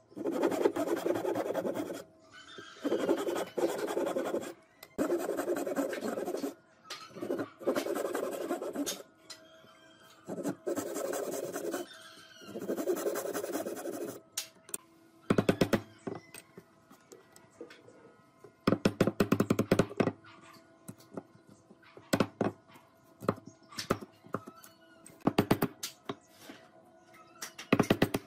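Fine-toothed hand saw cutting wood in six bouts of rapid back-and-forth strokes, each a second or two long. After the middle come shorter clusters of sharp clicks and knocks with quiet gaps between them.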